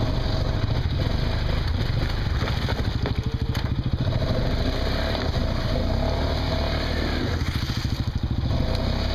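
Honda Rincon ATV's single-cylinder engine running under throttle through shallow mud and water, a steady pulsing rumble that eases off briefly about three seconds in and again near eight seconds.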